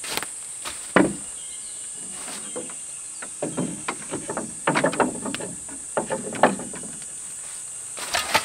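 Wooden knocks and rattles from a slat gate being handled and shut and a hoe being set down and picked up, with steps on dry leaves. There is one sharp knock about a second in and a busy clatter in the middle. Insects chirr steadily at a high pitch throughout.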